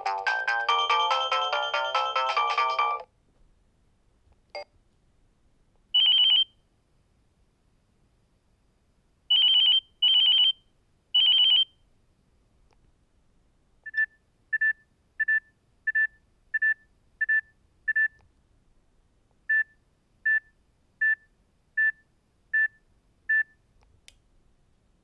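Nokia 6260 mobile phone ringtones played one after another. A polyphonic ringtone melody stops about three seconds in. Short electronic beep tones follow: a single beep, then a group of three, then two runs of evenly spaced short high beeps at about three every two seconds.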